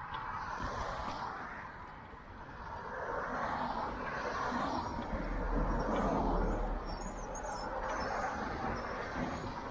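Vehicle noise passing by, swelling and fading several times, loudest about six seconds in with a deep rumble.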